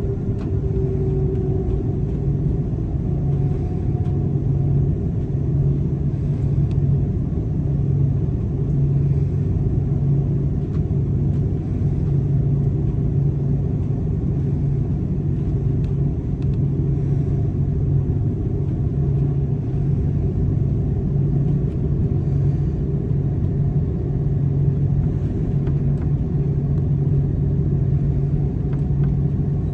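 Steady low rumble and drone of an Airbus A330 airliner heard from inside the passenger cabin, with a faint tone gliding down in pitch in the first second.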